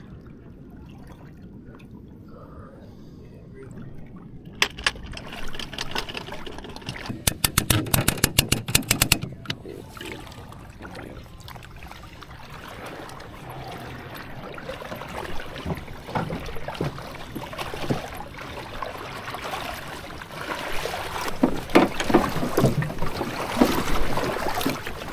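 Shallow water sloshing and splashing as an aluminium dinghy is hauled onto its boat trailer. A rapid run of sharp clicks comes partway through, and louder knocks and thuds come near the end.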